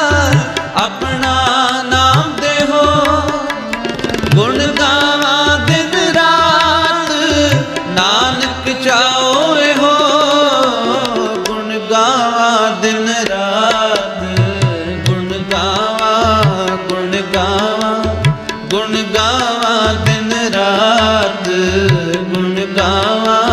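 Instrumental passage of Sikh shabad kirtan music between sung verses: tabla strokes, including low bass-drum strokes that slide up in pitch, under a wavering melodic line.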